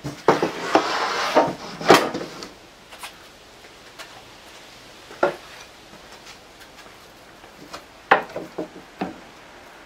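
A plywood panel-cutting sled and boards being slid and set down on a table saw top, with the saw switched off. Wood scrapes and clatters for the first two and a half seconds, then comes one knock about five seconds in and a few sharp knocks around eight to nine seconds.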